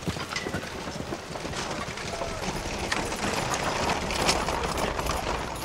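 Horse hooves clopping and a horse-drawn wagon rattling and creaking as it rolls along, the sound growing denser and louder toward about four seconds in.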